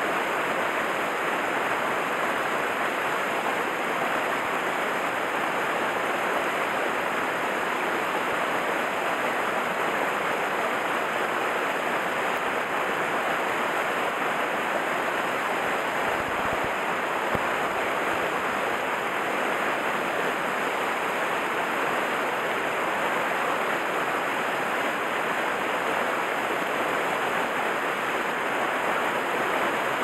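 A small mountain-stream cascade pouring over rocks into a pool: steady rushing water.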